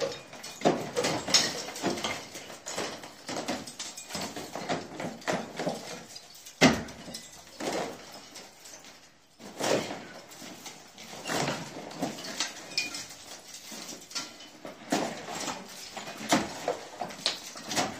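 Hammer blows knocking old plaster off a wall, irregular hits with crumbling and scraping between them and one sharper crack about a third of the way in.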